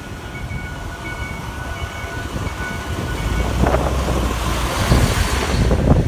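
A heavy truck's diesel engine drawing near, its low rumble growing louder from about halfway through, with wind buffeting the microphone. Faint, evenly repeating high electronic beeps sound over it in the first half.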